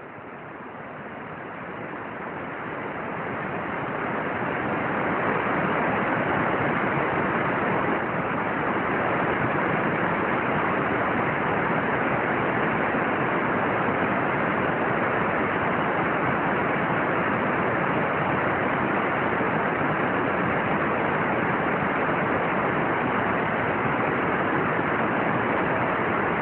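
A steady, even hiss that grows louder over the first five seconds, then holds level.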